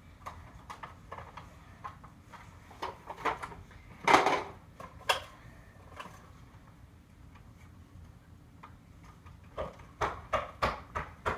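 Scattered light clicks and knocks, with one louder knock about four seconds in and a quick run of clicks near the end.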